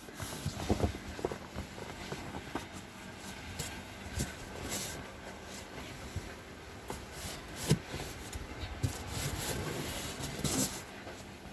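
Irregular crunching and rustling with scattered sharp clicks, from movement through deep snow.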